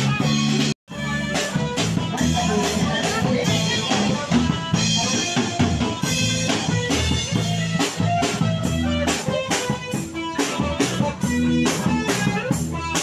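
Live band music: drum kit and guitar playing a dance tune with a steady beat. The sound cuts out completely for a moment a little under a second in.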